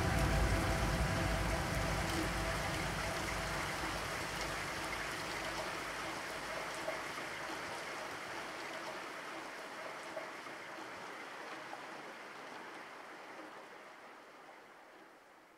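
The end of a music track fading out: a noise like rain or running water with faint held tones, dying away steadily to near silence.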